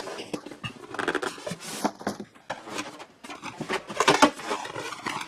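A product box and its packaging being opened and rummaged by hand, with irregular rustling, scraping and small knocks.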